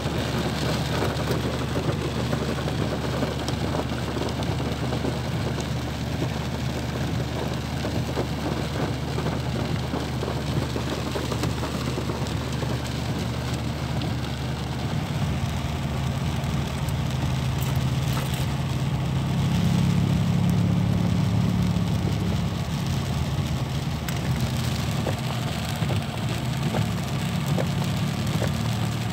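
Heavy rain beating on a car's roof and windshield, heard from inside the cabin over the steady hum of the car's idling engine. About halfway through, the engine note changes and grows louder for a few seconds.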